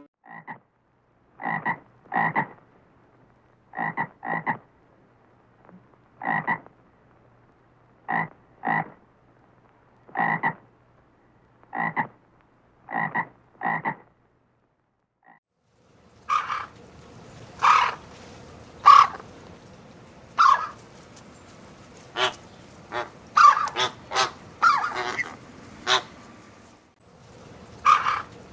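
Frogs croaking. Short croaks come in pairs roughly every two seconds, then after a brief break halfway through, a noisier recording follows with quicker, irregular calls.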